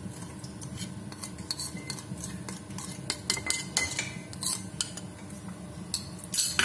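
Irregular light clicks and clinks of cutlery and dishes being handled, with a louder cluster of knocks near the end, over a low steady hum.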